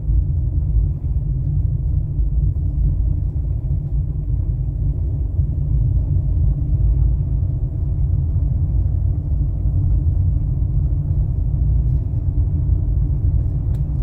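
A car driving at a steady speed: a continuous low rumble of engine and tyre noise.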